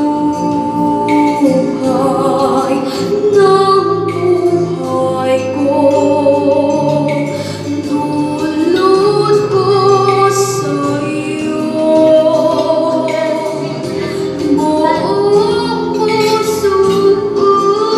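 A young girl singing a slow melody into a microphone over an instrumental backing track, holding long notes and gliding between pitches, amplified through a PA.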